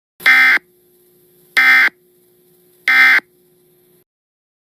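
Emergency Alert System end-of-message signal heard through a TV: three short buzzing digital data bursts (SAME code), about 1.3 s apart, closing out the nationwide test alert. A faint steady tone lingers between the bursts.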